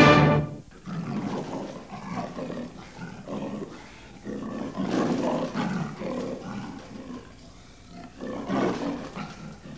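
A music cue cuts off about half a second in. It is followed by a series of irregular, animal-like growls and roars, several in a row, rising and falling at a moderate level.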